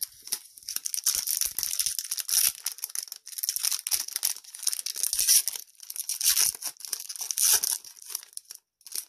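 A trading-card booster pack wrapper being torn open and crinkled in the hands, a dense crackling rustle with several louder surges, dying away just before the end.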